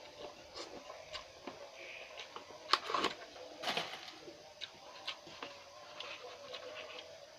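Close-up mouth sounds of eating hot instant cup noodles: chewing and slurping with many short wet smacks and clicks.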